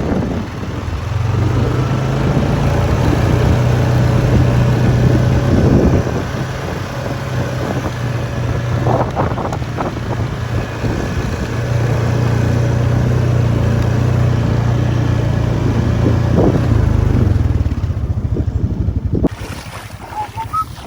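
Vehicle engine running steadily with wind buffeting the microphone, louder twice for several seconds, then cutting to a quieter stretch near the end.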